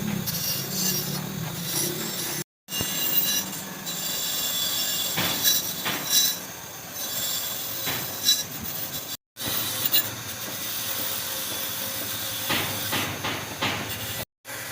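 Scraping and rubbing on metal, with high squeals and a few sharp knocks, from hand work on turbocharger parts. The sound cuts out abruptly three times.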